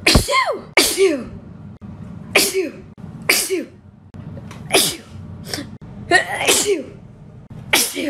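A woman in a sneezing fit: about seven loud sneezes in quick succession, roughly one to one and a half seconds apart. Each sneeze ends in a falling voiced cry.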